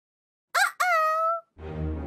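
A short edited-in sound effect: a quick rising tone, then a second one that rises and holds for about half a second. Background music with a steady bass comes in near the end.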